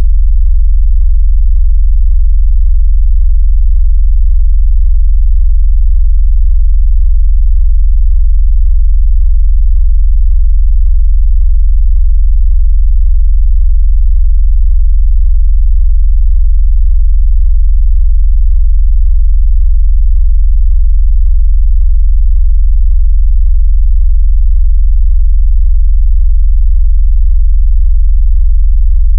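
A loud, steady, very deep synthesized sine-wave tone that does not change. It is the kind of bass 'vibration' tone played through a phone speaker to make the phone buzz or to push water out of the speaker.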